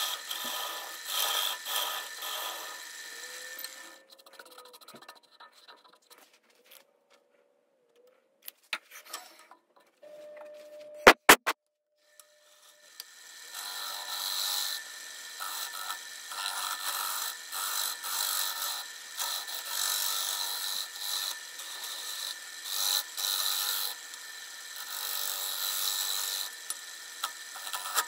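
Live edge maple bowl spinning on a wood lathe, with rasping and scraping against the wood. The rasping stops for a quieter stretch near the middle, broken by two sharp clicks, then starts again and runs on.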